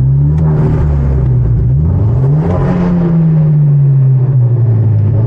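Hyundai Genesis Coupe's turbocharged 2.0-litre four-cylinder revving. The revs rise twice, the second time about two seconds in, then fall away slowly with no exhaust pops, which the owner puts down to the engine not being warm enough.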